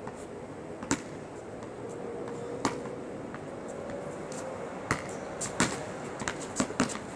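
Basketball bouncing on an asphalt court: single bounces a couple of seconds apart, then a quicker run of dribbles in the second half.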